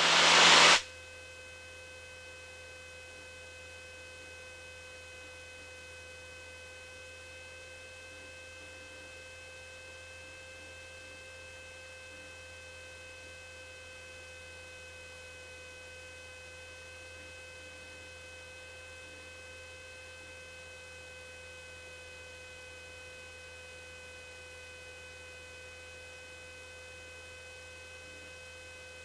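A louder noise cuts off abruptly about a second in. It leaves a steady electrical hum with a faint, thin high whine on the recording line.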